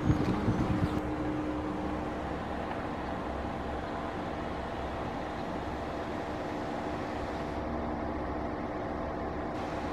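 Car driving: steady engine and road noise, with wind buffeting the microphone in the first second.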